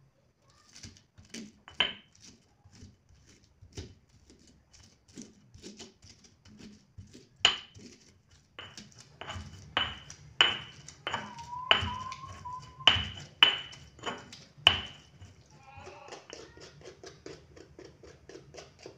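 Stone pestle pounding and grinding candlenuts, garlic, shallots and coarse salt in a stone mortar (cobek): a run of sharp knocks, loudest from about seven to fifteen seconds in, then quicker, fainter grinding strokes near the end.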